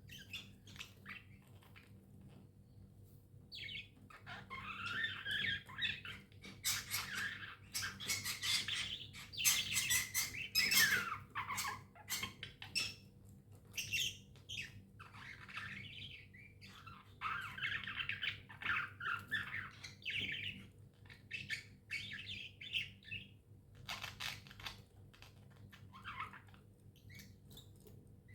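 Budgerigars chirping and warbling in rapid chattering runs, busiest and loudest in the middle, with sharp clicks mixed in, then thinning to scattered chirps near the end. A steady low hum runs underneath.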